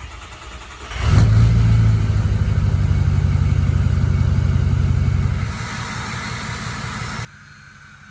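Ford 6.0 Power Stroke V8 turbo-diesel engine running loud, its level jumping sharply about a second in. The level drops somewhat as a high hiss comes in near five and a half seconds, then the sound stops abruptly about seven seconds in.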